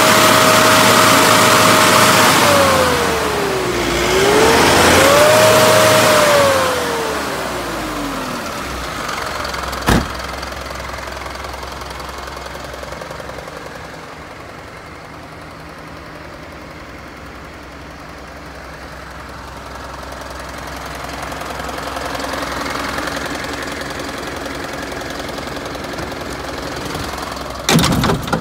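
Isuzu Elf truck's turbodiesel engine revved twice, each time held high for a second or two before falling back, then settling to an idle with a diesel knock. There is a single sharp click about ten seconds in and a few knocks near the end.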